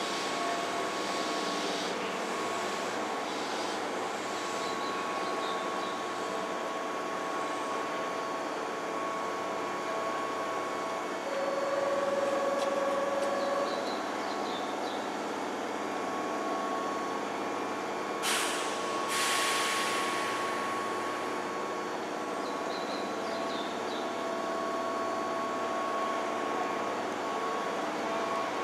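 Keihan 5000-series electric train standing at the platform, its onboard equipment humming steadily. A steady tone sounds for about two seconds near the middle, and about two-thirds of the way in two hisses of released air come from the train's air system.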